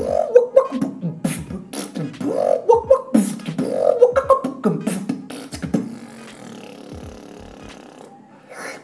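Beatboxed lip bass (lip oscillation) notes shaped with different spoken letter and vowel sounds, in a rhythmic pattern with sharp clicks between the bass notes. The pattern stops about six seconds in, leaving only a faint tail.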